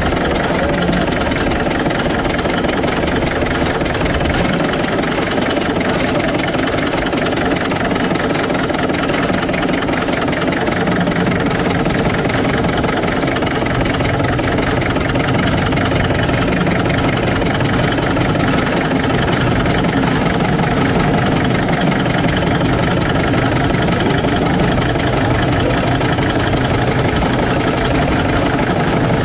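Shay geared steam locomotive running along the track, heard close up beside its machinery: a steady, rapid chuffing mixed with mechanical clatter.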